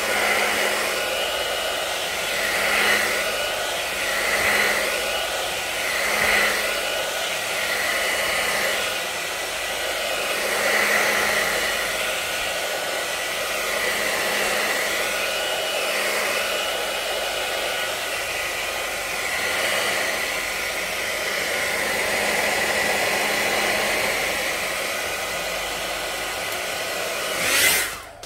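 Hand-held hair dryer blowing steadily over a glass plate to dry a freshly brushed coat of sealer, its rush of air swelling and dipping slightly as it is swept about. It switches off abruptly near the end.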